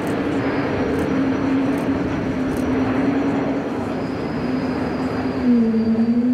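Embraer E195-E2 airliner flying past, its two Pratt & Whitney PW1900G geared turbofans giving a steady rushing jet noise with a low, even hum. A bit over five seconds in, the hum grows louder and dips, then rises again in pitch.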